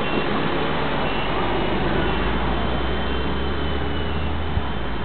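450-class electric RC helicopter in flight: a steady whir from its rotors and motor with a faint high whine, and a low rumble of wind on the microphone from about a second in.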